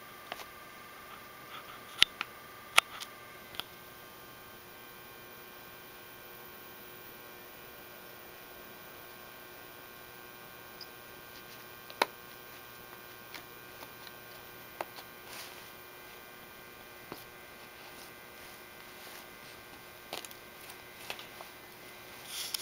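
A cat rummaging in an open handbag: a handful of sharp little clicks and faint rustles over a steady electrical hum.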